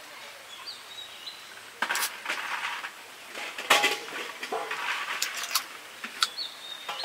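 A small handheld container being handled and twisted open: a run of clicks, rattles and light knocks lasting a few seconds, loudest a little under four seconds in.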